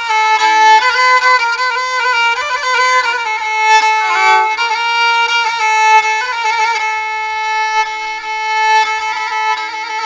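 Background music: a solo bowed fiddle playing a melody with long held notes and slight vibrato.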